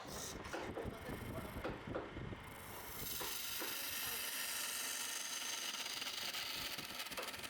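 Wood being worked on a spinning wood lathe, with irregular rubbing and scraping at first, then a steady rubbing hiss from about three seconds in.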